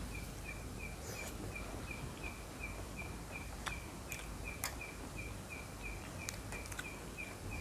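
A short high chirp repeating steadily, about three times a second, over outdoor background noise, with a few sharp clicks scattered through.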